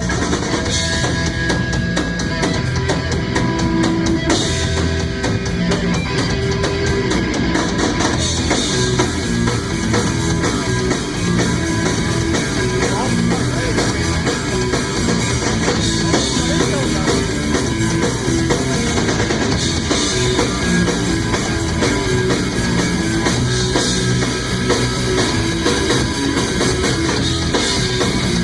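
Live rock band playing an instrumental passage with no singing: electric guitar, bass guitar and drum kit together, with a steady run of drum hits.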